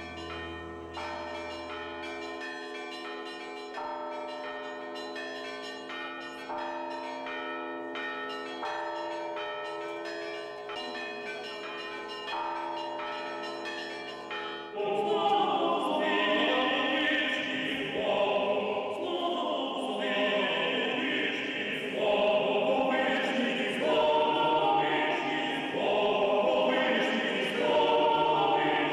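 Soft background music of long sustained notes, then about halfway through it gives way, suddenly and louder, to a small vocal ensemble singing Orthodox chant a cappella.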